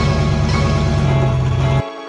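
Cammed 5.3-litre V8 of a 2000 GMC Sierra idling just after a cold start, with background music laid over it; the engine sound cuts off abruptly near the end, leaving only the music.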